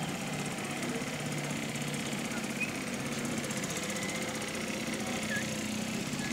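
Small outboard motor running steadily under way, with a fast even pulsing.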